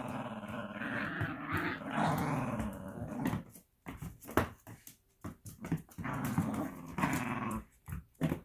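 Italian greyhound growling in play during a tug-of-war over a plush toy. A long growl is followed by a pause of a couple of seconds with a few sharp clicks and knocks, then a second growl.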